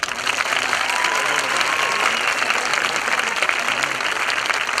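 Large audience applauding, a dense steady clapping that starts suddenly and holds at full strength.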